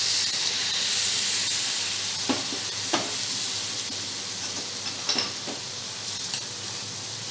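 Hot ghee and roasted rajgira (amaranth) flour sizzling and bubbling as milk is poured in, the hiss slowly dying down. A spatula stirs and scrapes across the nonstick pan, with a few sharper scrapes.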